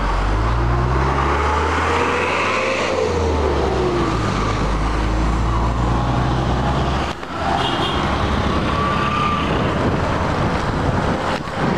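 Engine and road noise of a moving vehicle heard from inside it, a steady low engine note with tones that rise and fall as it changes speed; the sound briefly drops about seven seconds in.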